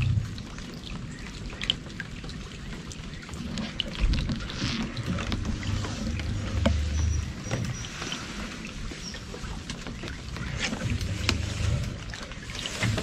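Small river boat drifting in light rain: water lapping and trickling about the hull, scattered raindrop ticks, and a few low dull thumps.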